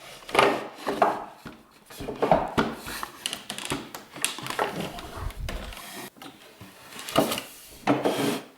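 A dining table being pulled out to extend it: repeated wooden rubbing and scraping with knocks as its sliding parts move.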